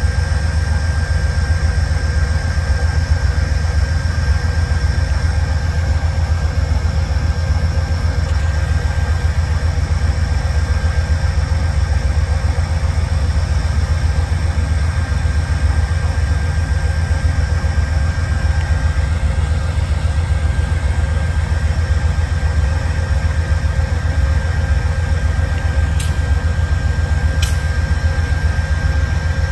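An Amtrak passenger train's diesel locomotives running at a steady idle: a constant heavy low rumble with a steady high whine over it. Two brief clicks near the end.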